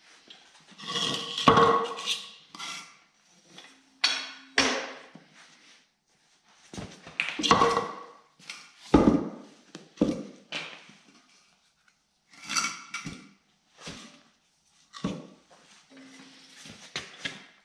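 Irregular knocks and clunks as a knobby motorcycle tire on its wheel is pressed under a homemade steel bead-breaker lever, then lifted, flipped and dropped back onto a wooden board. Two short creaks come about four seconds in and near the end.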